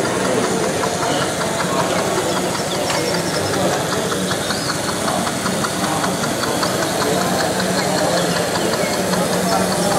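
Model train running on an exhibition layout: a steady mechanical running sound with rapid, regular clicking, over a murmur of voices.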